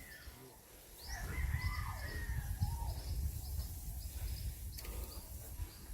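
Birds calling outdoors: repeated short high chirps, with a few longer gliding calls about a second in. Under them, a low rumble, such as wind or handling on the microphone, runs from about a second in until near the end.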